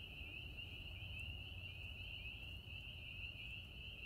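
A faint, distant chorus of spring peepers: many high peeping calls overlapping without a break.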